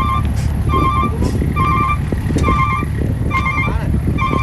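Reversing alarm on a heavy machine beeping at an even pace, about one beep a second, over the steady low rumble of a diesel engine running: the machine is backing up.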